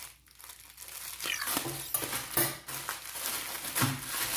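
Parcel packaging crinkling, rustling and tearing as it is opened by hand, in irregular scrapes and crackles.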